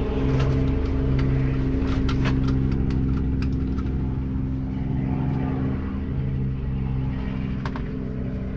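Airbus H125 helicopter running steadily on the ground, a constant engine and rotor drone with a throbbing low end. A run of sharp clicks sounds over it in the first few seconds, and one more near the end.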